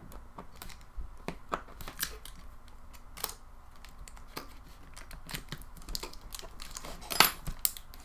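Fingers handling the opened Nexus 7 tablet's internal parts: irregular small clicks and taps of plastic and metal, with a louder cluster of clicks about seven seconds in.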